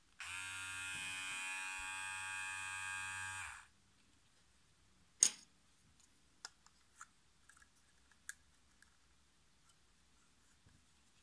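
Aprilla AHC-5035 cordless hair clipper switched on, running with a steady buzz for about three and a half seconds, then switched off. A sharp click follows, then several lighter plastic clicks as a guide comb is handled and snapped onto the blade.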